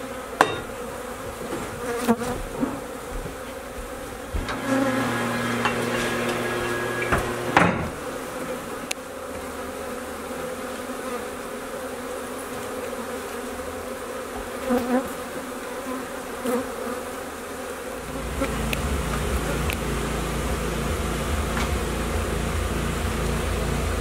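Honey bees from an exposed colony buzzing, with a few sharp knocks from the removal work. A low rumble comes in near the end.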